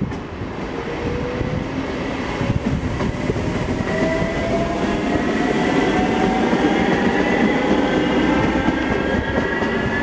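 NSB Class 69 electric multiple unit accelerating away from the station. Its electric traction drive gives a whine that rises steadily in pitch over the rumble of wheels on the rails.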